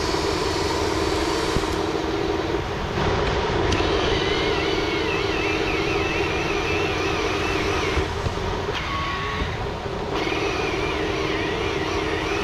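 Radio-controlled Volvo 6x6 articulated dump truck running with a steady motor whine as its bed tips up and the sand load slides out. A higher, wavering whine joins about four seconds in.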